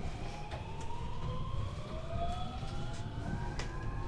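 Traction inverter and motors of a 521-series electric train whining in two tones that climb steadily in pitch as the train gathers speed, over a continuous low running rumble with a few clicks, heard inside the motor car.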